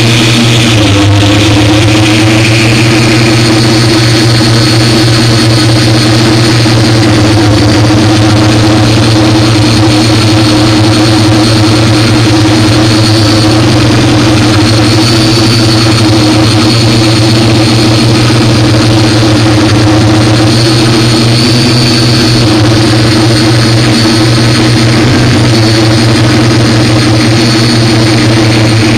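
A camera drone's electric motors and propellers running steadily close to the microphone: a loud, even hum with a faint high whine over it, the pitch shifting briefly about a second in.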